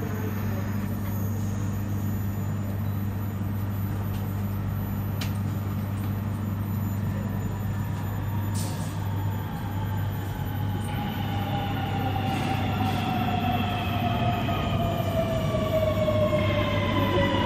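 Electric passenger trains at a station platform: a steady low hum throughout, then from about halfway a multi-tone electric whine that slowly falls in pitch and grows louder, like an electric train's motors as it slows. There is a single click about five seconds in and a short hiss just before the whine begins.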